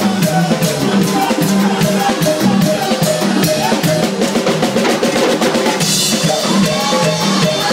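Live band playing an up-tempo piece: drum kit keeping a steady beat with bass drum and snare, under keyboard and electric guitar. A cymbal crash rings out about six seconds in.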